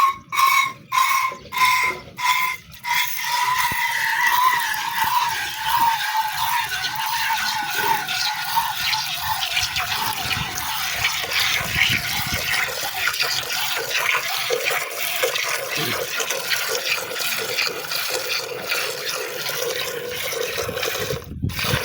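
Milk squirting into a container: a few separate spurts, about two a second, then a continuous rushing stream with a ringing tone that drifts in pitch. It stops abruptly just before the end.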